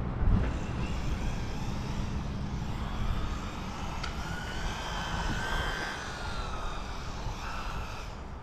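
Steady low rumble of wind on the microphone, with a faint whine that slowly rises and then falls in pitch in the middle.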